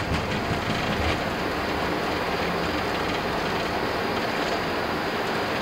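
Flight-deck noise of an Airbus A330-300 rotating and lifting off under takeoff thrust: a steady roar of engines and airflow, with a rumble and a few thumps from the wheels on the runway in the first second or so, then smoothing out.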